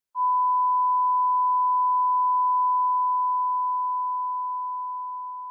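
A single pure electronic beep tone, steady and unwavering. It begins just after the start, holds level for about two and a half seconds, then slowly fades away.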